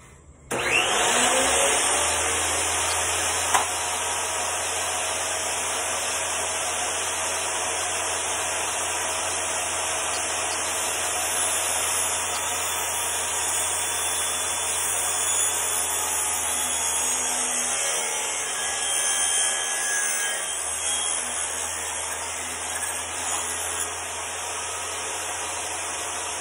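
Benchtop table saw switched on about half a second in, its motor spinning up and then running steadily while a sheet of 1/8 inch birch plywood is fed through the blade. A single sharp click about three and a half seconds in.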